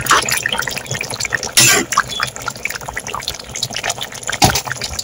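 Spicy fish curry bubbling at a boil in a pot, a dense crackle of popping bubbles, with a louder burst about a second and a half in and a sharp knock near the end.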